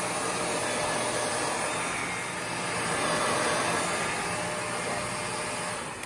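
Shark Rotator Pro upright vacuum cleaner running steadily on a carpet, its motor giving a constant rushing whine with a low hum underneath.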